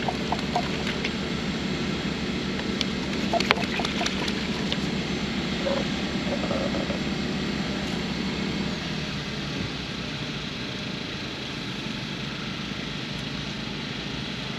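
Steady low machine hum, like a running engine or fan, easing off slightly about nine seconds in, with a short cluster of clicks about three and a half seconds in.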